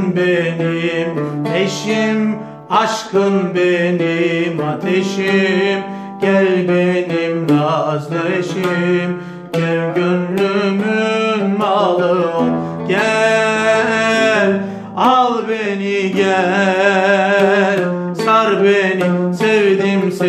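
An oud playing plucked melodic lines in makam Uşşak, in bolahenk tuning with its tonic on E. A voice sings long, wavering held notes over it, most strongly between about 13 and 18 seconds in.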